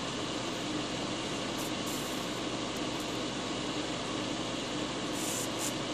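Steady whir of an electric fan running, with a few brief, faint high hisses around two and five seconds in as the soldering iron is retinned with flux-cored solder.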